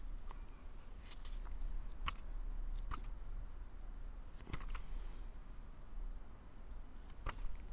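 Faint, high-pitched chirps or squeaks from a small animal, heard about three times, among a few scattered light clicks.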